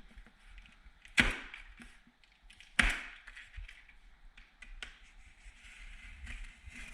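Handling of a cardboard shipping box being opened: two loud, sharp rips or snaps about a second and a half apart, each trailing off over about half a second, among smaller clicks and rustling.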